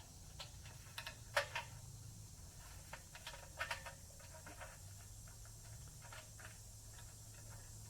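A few light clicks and taps, mostly in the first half, over a faint steady low hum.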